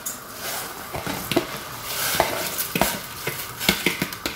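Soaked rice being tipped from a plastic bowl into a steel pot of boiling water, over the steady bubbling hiss of the boil, with repeated sharp clicks and knocks as the bowl meets the pot.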